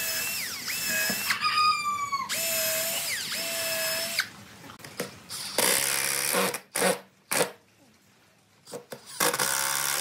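Cordless drill run in short trigger bursts, its motor whine rising and falling as it bores into wood. After a brief lull, several shorter bursts follow as long screws are driven into the wooden pads.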